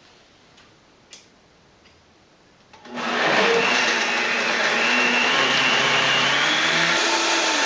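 Vitamix blender switched on about three seconds in, after a couple of faint clicks, and then running loud and steady with a high whine as it blends a green smoothie of water, bananas, apples and leaf lettuce.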